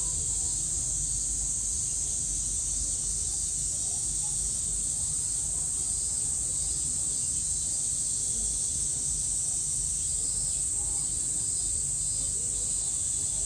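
Steady high-pitched shrill of cicadas, with a low rumble and faint distant voices beneath.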